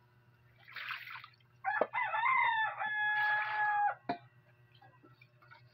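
A rooster crowing once, a single long call of about two seconds. There are a couple of sharp knocks, and a faint steady low hum underneath.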